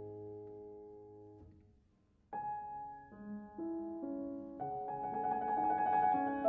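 Background piano music: a held chord dies away to near silence about two seconds in, then new notes start and build into fuller chords.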